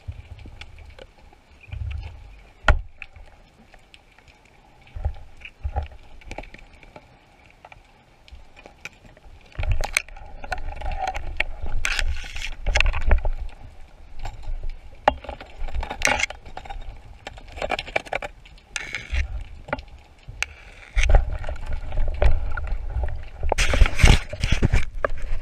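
Underwater sound from a camera mounted on a speargun: scattered clicks and knocks as the gun is handled among rocks, with a low water rumble. Louder stretches of rushing, bubbling water come about ten seconds in and again near the end.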